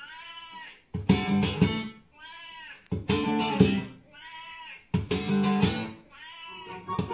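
Acoustic guitar strummed in short phrases, with a cat meowing in each gap: four drawn-out meows taking turns with three strums.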